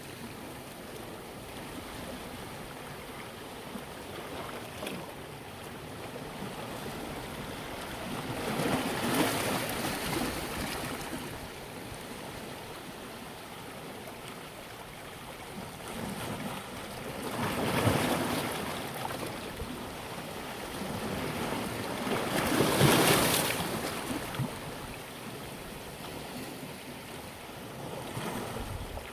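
Sea waves breaking and washing up the shore, a steady rush that swells and falls away several times, the loudest wave about three-quarters of the way through.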